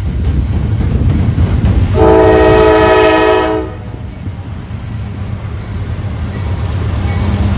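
Norfolk Southern intermodal freight train running through, its diesel locomotives giving a steady low rumble. About two seconds in, the locomotive horn sounds one chord blast lasting about a second and a half.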